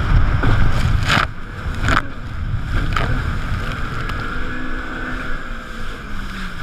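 Jet ski running at speed, its engine and jet drone heavily buffeted by wind on the chest-mounted microphone, with spray and water slaps; three sharp hits in the first three seconds. The low wind rumble eases about a second and a half in, leaving the engine note steadier.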